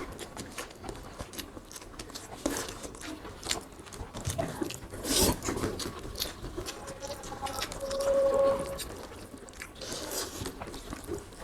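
Eating sounds from beef curry and rice: chewing with irregular smacks and clicks, plus a brief held tone about eight seconds in.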